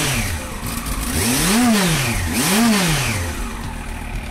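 Yamaha FZS1000 Fazer's inline-four engine heard through a Scorpion slip-on silencer with its baffle fitted, idling and blipped on the throttle. A rev drops back at the start, then two quick blips about a second apart rise and fall around the middle before it settles to idle.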